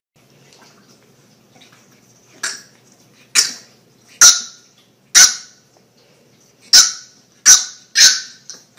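French bulldog puppy yapping in short, high-pitched play barks at a cat, about eight of them spaced roughly a second apart, starting a couple of seconds in.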